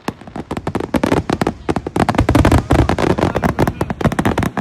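A rapid, dense string of firework cracks and pops, thickening about a second in and running nearly continuous and louder from about two seconds in, like a finale barrage or strings of firecrackers.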